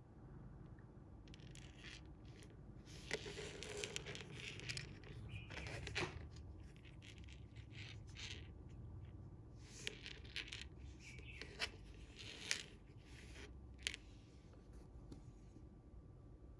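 Faint rustling and scraping of fingers handling monofilament fishing line and a finished rig, with several light clicks scattered through it.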